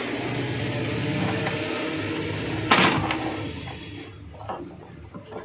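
Small hand tools and wires being handled on a workbench over a steady background noise that fades about four seconds in. One sharp metallic clack comes a little past halfway, and a few light clicks follow near the end.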